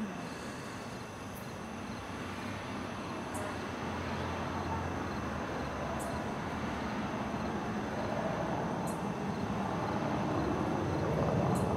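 Outdoor night ambience: a steady vehicle rumble that slowly grows louder toward the end, as of traffic or a vehicle approaching, with insects chirping faintly.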